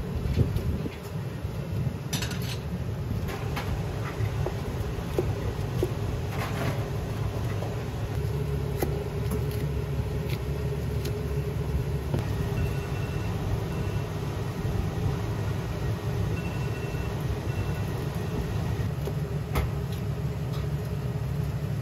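Commercial Chinese kitchen noise: a steady low roar of gas wok burners and the extractor fan, with occasional clanks and scrapes of cooking utensils on a wok.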